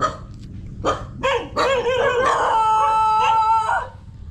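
Dog barking a few times, then a long howl that wavers at first and then holds a steady note before breaking off.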